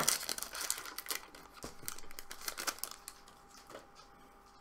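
Foil wrapper of a Pokémon TCG booster pack crinkling as it is rubbed and opened. A dense run of crackles thins out after about three seconds.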